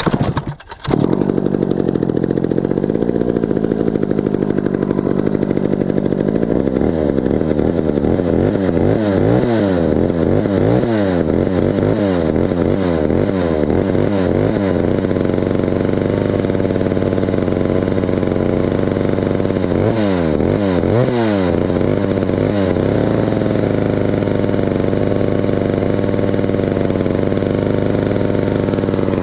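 Stihl 051 two-stroke chainsaw catching about a second in after a short rattle of the pull start, then running with its idle freshly adjusted. The throttle is blipped over and over in a long spell of quick revs and later a shorter one, and in between and afterwards the saw settles back to a steady idle.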